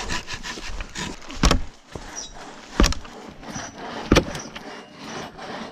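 Crosscut saw rasping through a large log, with three sharp knocks a little over a second apart.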